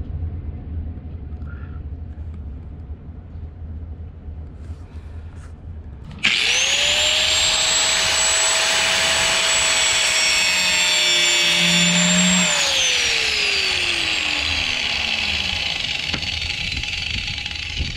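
Electric angle grinder with a cut-off wheel switched on about six seconds in, whining up to speed and cutting through vinyl-coated stainless steel wire rope lifeline cable. About six seconds later it is switched off and its whine falls steadily in pitch as the wheel spins down.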